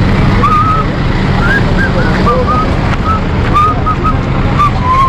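Wind buffeting the microphone: a loud, steady rumbling noise, with short faint chirps over it throughout.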